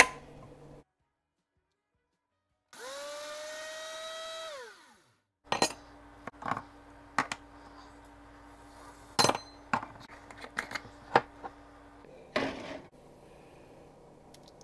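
Ninja Professional 1500-watt blender grinding eggshells in a single-serve cup, running for about two seconds from about three seconds in: its pitch rises as the motor spins up, holds, then falls as it winds down. Afterwards comes a string of sharp knocks and clicks, the loudest sounds, over a faint steady hum.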